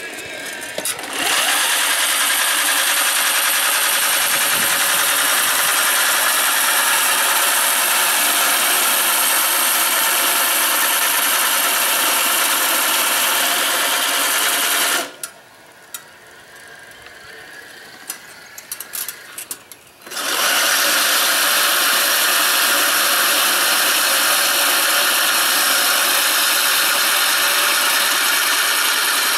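Homemade remote-control reel lawn mower running loudly and steadily, its reel driven by CIM electric motors through an AndyMark gearbox and cutting grass. It stops about halfway through and starts again some five seconds later.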